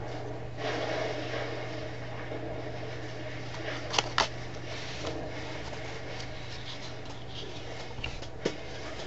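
Playing cards handled by hand, giving two sharp clicks about four seconds in and another near the end, over a steady low hum and room noise.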